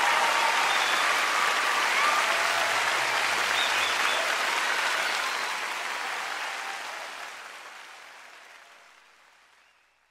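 Audience applause at the end of a live song recording, steady at first, then fading out over the second half.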